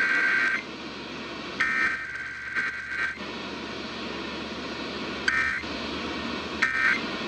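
Emergency Alert System SAME data bursts over a radio broadcast: a harsh, buzzy two-tone digital screech in bursts. One burst ends under a second in, two more follow between about one and a half and three seconds, then two short bursts come near five and a half and seven seconds, over a steady hiss.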